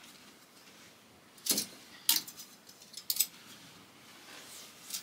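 Clothes hangers clicking and clacking against a metal clothing rail as a garment is hung up and another taken down: several sharp, separate clicks a second or so apart.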